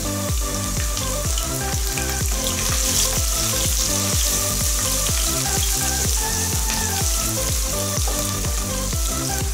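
Sliced garlic, ginger and green chillies sizzling steadily in hot oil in a pot, stirred with a wooden spatula near the end, with background music with a steady beat underneath.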